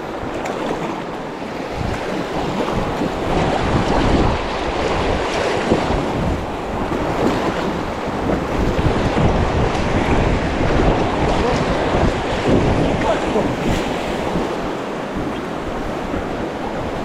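River water rushing and splashing around an inflatable raft, with wind buffeting the microphone in low rumbling gusts.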